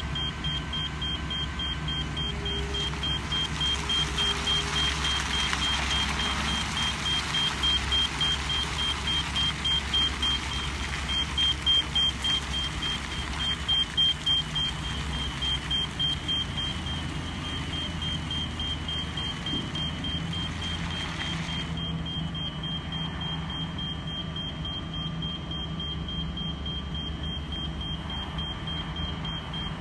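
Low-profile tunnel-segment carrier train driving slowly, its motor running with a low rumble under a steady, rapid high-pitched warning beeper, about three beeps a second. A hissing noise rises a few seconds in and cuts off suddenly about two-thirds of the way through.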